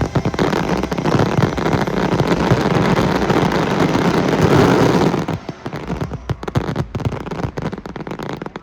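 Fireworks going off in a dense barrage: crackling bursts and bangs pile up into an almost continuous crackle for about five seconds, then thin out to scattered separate pops.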